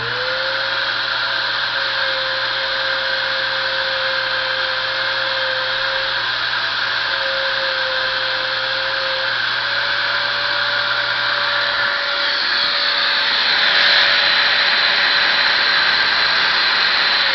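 Metabo WE9-125 Quick angle grinder's universal motor running at full speed with a steady high whine, while a commutator stone is held against the spinning commutator to clean off the sparking. A scraping hiss grows louder about two-thirds of the way in as the stone dresses the commutator, and the motor speed comes up.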